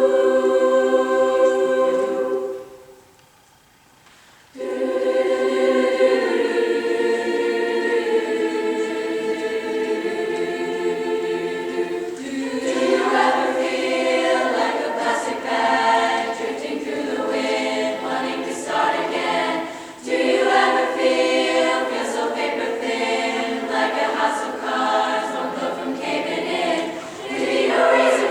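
Chorus of young women singing a cappella in harmony: a held chord breaks off about three seconds in, a short pause follows, then long sustained chords give way about halfway through to quicker, rhythmic phrases.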